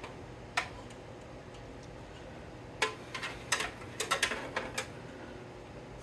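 Sharp clicks and taps of PC parts and connectors being handled during assembly: a single click near the start, then a quick cluster of about ten from about three to five seconds in, over a faint steady hum.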